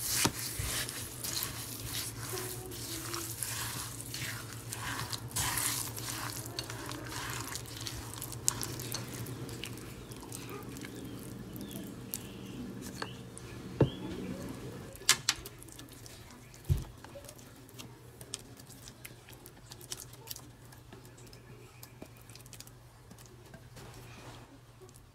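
A spatula stirs a thick, wet oat, seed and nut batter in a glass bowl, making wet squishing and scraping. A few sharp knocks of the spatula against the bowl come in the middle. In the last few seconds the batter is spread on a metal baking tray and the scraping is quieter.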